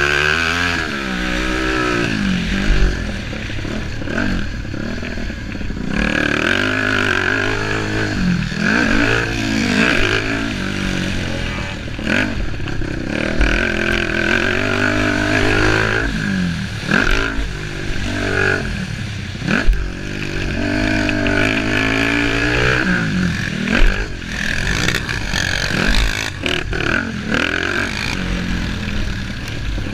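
Racing engines running hard, their pitch rising and falling over and over as they accelerate and ease off.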